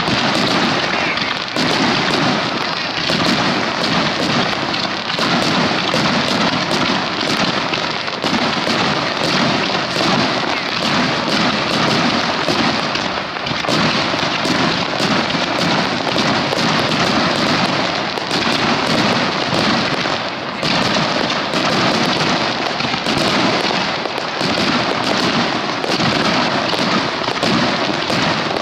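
Starmine fireworks barrage: many shells and comets launching and bursting in rapid succession, a dense, unbroken rattle of bangs several times a second.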